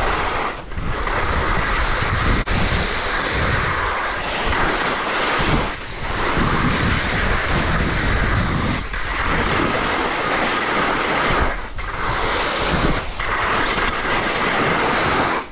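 Skis scraping and carving over firm, crusty spring snow, mixed with wind rushing over the camera microphone. The noise is loud and continuous, dipping briefly every couple of seconds.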